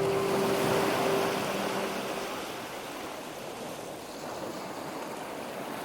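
Ocean surf: a steady rushing wash of waves, slowly getting quieter, with the last notes of soundtrack music fading out in the first two seconds.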